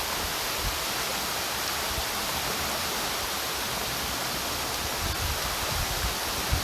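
Waterfall's falling water rushing in a steady, even noise.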